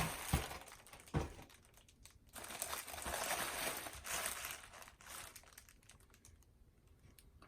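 Packaging of a goalkeeper-glove box being handled and opened: a few sharp clicks, then a stretch of crinkling and rustling that dies away over the last couple of seconds.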